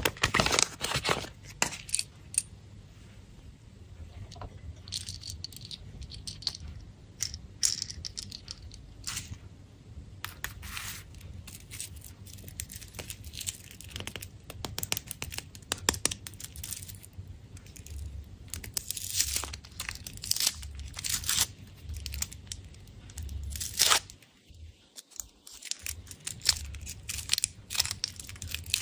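Foil wrappers of chocolate candy eggs crinkling and tearing as they are peeled off by hand, in irregular crackles and sharp clicks, with a short pause about three quarters of the way through.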